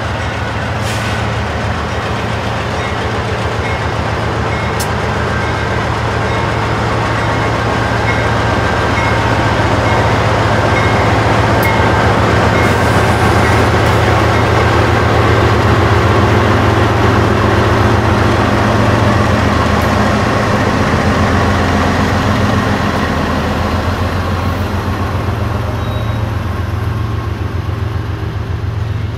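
Two GE diesel-electric freight locomotives, an AC4400CW and an ES44C4, passing close by under power: a loud, deep, steady engine drone that swells toward the middle. It then eases off as covered hopper cars roll past with the rumble of steel wheels on the rails, and the sound cuts off suddenly at the end.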